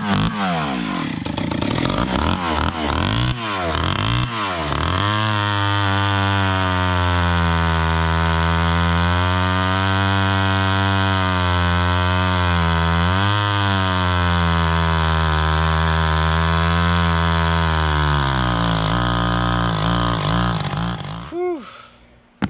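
Vintage Stihl 031 two-stroke chainsaw, fitted with two stacked carburetors, revving up and down for a few seconds, then running at a steadier, lower pitch under load as it cuts into a log. It dies away and stops near the end. The owner judges it to be getting too much fuel.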